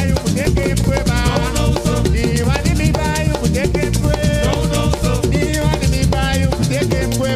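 Live kawina music: a steady, fast rhythm of drums and rattling shakers, with singing over it.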